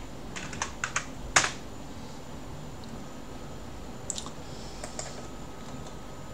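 Computer keyboard typing: a short run of quick keystrokes, ending with a louder key press about a second and a half in, then a couple of faint clicks around four to five seconds in.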